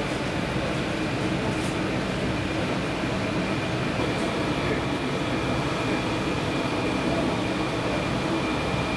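A steady mechanical hum and rumble at an even level, with a faint, constant high whine.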